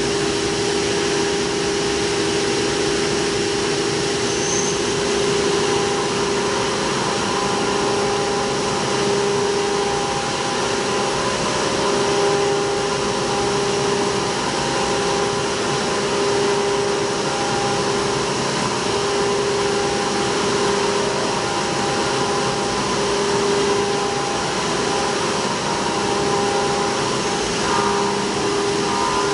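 CNC milling machine cutting a pocket with an end mill under flood coolant on a traditional 2.5D racetrack toolpath: a steady cutting tone over a hiss of spraying coolant. The tone swells and eases every couple of seconds.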